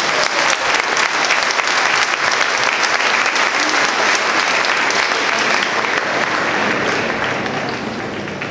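Large stadium crowd applauding, a dense clatter of clapping that dies down near the end.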